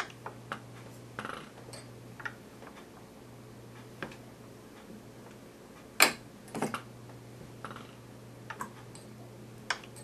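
Scattered light metallic clicks and ticks, a dozen or so at uneven intervals, from the governor and valve-lockout gear of a scale-model Woodpecker hit-and-miss engine being turned over slowly by hand. The loudest click comes about six seconds in, and a low steady hum runs underneath.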